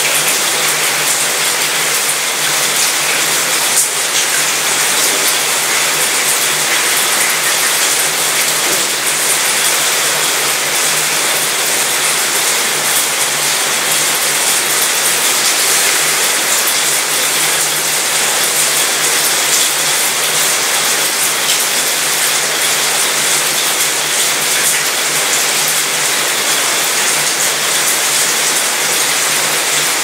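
Steady rain pattering on a cruise ship's mostly metal balcony and railing, a dense spatter with a rattling quality, over a low steady hum.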